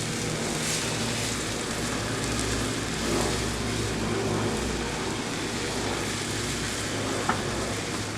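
Sofrito, tomato paste and a chicken bouillon cube sizzling steadily in hot oil in a pan as they are sautéed. A single sharp click comes near the end.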